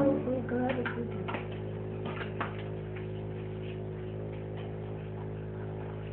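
Steady electrical mains hum with a few light clicks and taps in the first two or three seconds, just as music cuts off.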